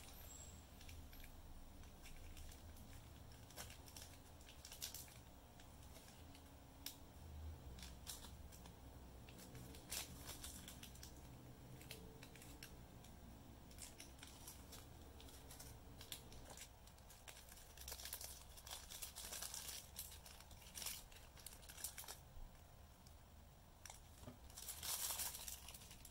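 Faint crinkling of a thin plastic sauce bag and rustling of paper food wrapping as hands handle them. The sound comes as scattered small crackles, with louder rustles a little past the middle and again near the end.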